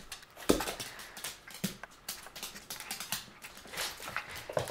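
A small dog's claws clicking and tapping on a laminate floor as it jumps and scrambles about, with a heavier thump about half a second in.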